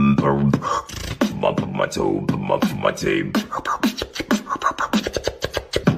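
Fast, beatbox-like vocal sounds: rapid clicks mixed with short gliding voiced notes, the clicks coming quicker in the second half.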